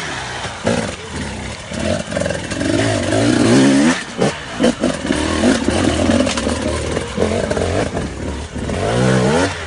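Enduro dirt bike engine revving hard in repeated rising bursts as it climbs steep dirt and rocks, with sharp knocks scattered between the revs. The biggest rises come at the very start, around three seconds in and near the end.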